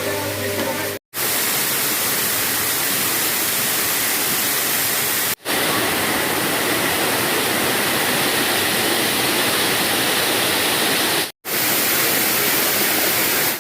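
Waterfall rushing: a steady, full roar of falling water, cut off for an instant three times where clips are joined.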